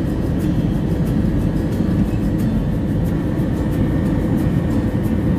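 Airbus A320 cabin noise on final approach: a steady low rumble of engines and airflow, with faint steady tones above it.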